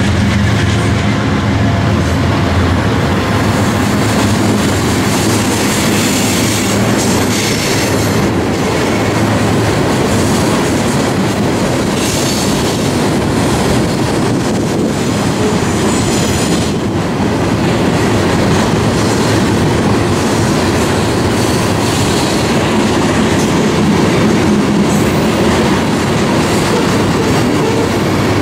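Freight trains rolling past at close range: double-stack container cars and loaded coal hoppers, with steady wheel clatter over the rails and some wheel squeal. A diesel locomotive's engine drone is heard in the first few seconds as it moves off.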